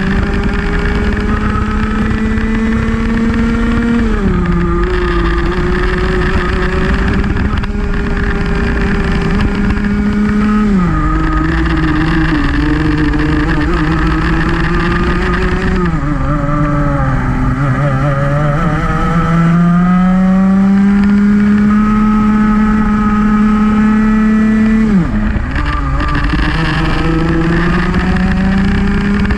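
Senior Rotax Max kart's 125cc two-stroke engine at racing speed. Its pitch climbs steadily along the straights and drops sharply four times as the kart slows for corners, with the deepest and longest dip near the middle.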